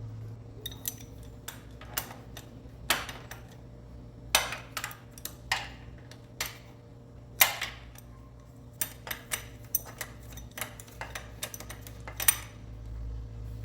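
Irregular metallic clinks and taps of hand tools and steel bolts on a motorcycle engine's cylinder head, as the three bolts of the rocker-arm holder are fitted and tightened. A steady low hum runs underneath.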